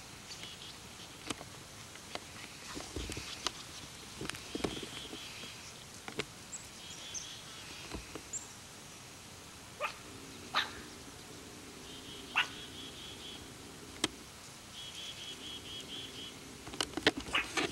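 Pug puppy giving short, sharp barks now and then, a few of them clustered about ten to twelve seconds in and again near the end. Birds trill repeatedly in the background.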